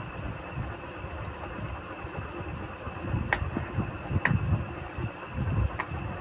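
Handling noise as a new pump head is pressed and turned onto an RO booster pump's motor by hand, with three sharp clicks about three, four and six seconds in, over a low uneven rumble and a faint steady high tone.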